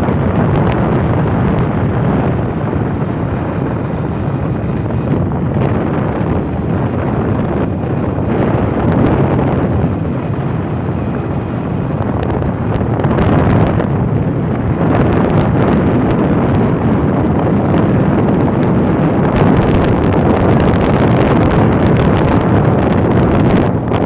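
Wind rushing and buffeting over the microphone on a moving motorbike, a loud steady roar with the ride's road noise beneath.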